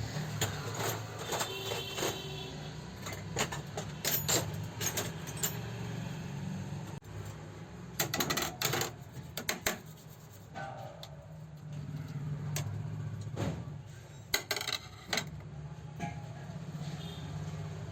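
Sharp metallic clicks and clinks at uneven intervals, the sound of tools and metal parts of an overlock sewing machine being handled during repair, with a clutch of them near the middle and another a little later. A low hum runs beneath them and fades out in places.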